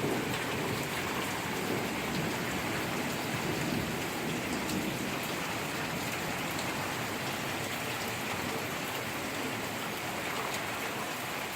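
Heavy rain falling steadily in a thunderstorm, a continuous even hiss of a downpour.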